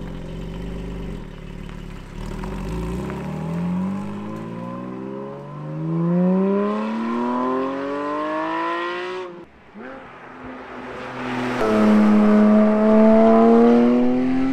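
Porsche 718 Cayman GT4's 4.0-litre flat-six pulling away: a low idle rumble, then the revs climbing steadily as the car accelerates down the road. After a sudden break about nine seconds in, the engine is heard again, louder, its pitch rising slowly under load.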